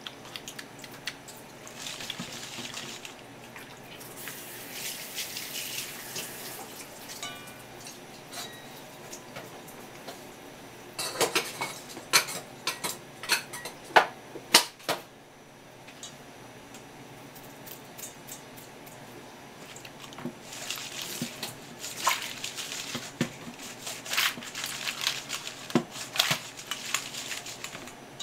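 Hands stirring cut pieces of swimming crab in sake and kabosu juice in a stainless steel bowl: wet sloshing and swishing, with scattered sharp knocks of shell against the metal bowl and a quieter pause midway.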